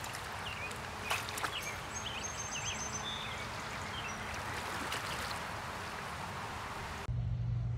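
Steady rush of a small stream's flowing water, with small birds chirping over it and a few short sharp splashes or clicks about a second in. About seven seconds in it cuts abruptly to a quieter low steady hum.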